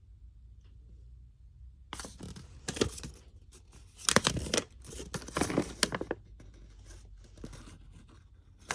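Packaging being handled and torn: irregular bursts of rustling and tearing that start about two seconds in and go on for several seconds, with more rustling near the end.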